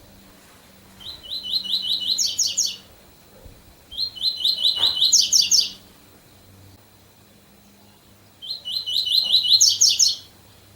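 Double-collared seedeater (coleiro) singing the 'tui tui bitola' song. It sings three phrases of fast, evenly repeated chirps, each about two seconds long, and each steps up higher partway through.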